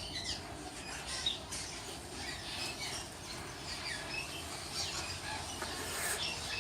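A colony of swallows giving many short, high chirps and twitters around their mud nests.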